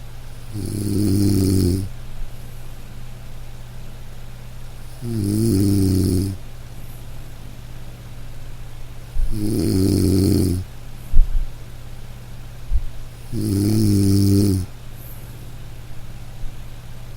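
A person snoring loudly: four long snores about four seconds apart, each just over a second long, over a steady low hum. A few short knocks fall between the snores, the sharpest just after the third.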